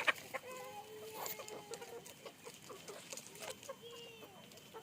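Several domestic chickens clucking, with overlapping short calls throughout and a sharp, louder sound right at the start.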